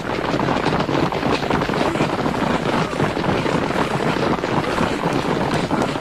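A loud, steady rushing noise with a crackle through it, starting suddenly; an action sound effect in an animated soundtrack.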